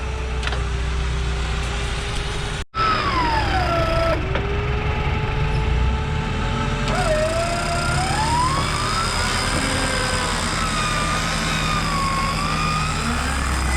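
Off-road vehicle engine running with a whining tone that rises and falls slowly, as under changing load on a trail. The sound drops out briefly about three seconds in.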